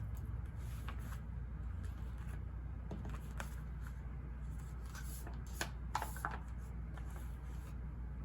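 Paper rustling and light handling noises: a scatter of short, crisp rustles and clicks, the loudest about six seconds in, over steady low ambient background noise.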